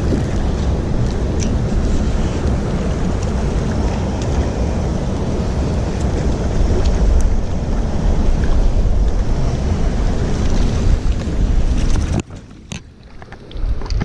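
Wind buffeting the microphone: a steady rushing noise that is heaviest in the low end. It drops away abruptly about twelve seconds in, then returns near the end.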